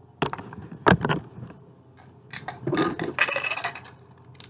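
Coins clinking and jingling as they are picked through by hand. A few sharp clicks come in the first second, then a longer jingle of coins sliding and knocking against each other, with a metallic ring, around the middle.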